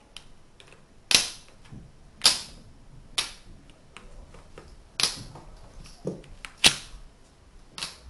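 Tegu magnetic wooden blocks snapping together, the magnets giving a sharp wooden click-clack. There are six loud clicks at irregular intervals, with fainter taps and knocks of wood between them.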